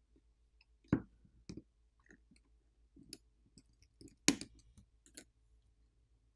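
Scattered small clicks and taps from a plastic pry pick and fingertips working at an iPhone 15 Pro's flex-cable connectors and internal parts. The two sharpest clicks come about a second in and about four seconds in.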